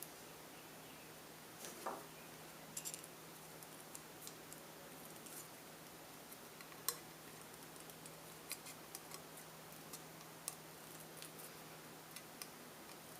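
Light, scattered metallic clicks and snips, a few seconds apart, from tin snips and hand tools working the thin tin sidewall of a tuna can, over a faint steady hum.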